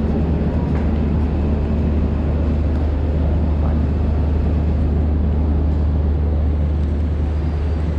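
Steady low drone of an idling train engine, with an even wash of platform noise above it.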